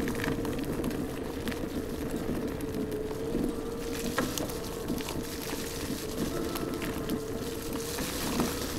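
iScooter iX5 electric scooter's 800 W motor whining at a steady, slightly wavering pitch while riding a rough dirt track, over a bed of tyre noise and occasional knocks and rattles from the bumps.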